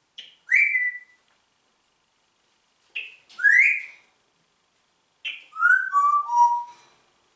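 Congo African grey parrot whistling three short phrases a couple of seconds apart. Each opens with a brief high note; the first whistle then falls, the second rises, and the last steps down in three notes.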